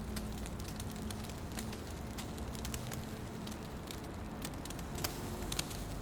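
Fire burning in a fireplace, crackling with irregular sharp pops over a steady low rumble; two louder pops come about five seconds in.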